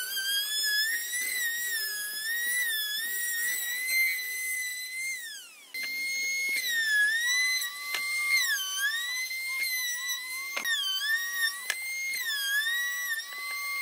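Compact trim router running at high speed with a high whine that drops in pitch each time the bit bites into the wood edge, then rises again as the cut eases. The whine falls away about five seconds in, then the router is running again, with a fainter lower tone joining it and a couple of sharp clicks near the end.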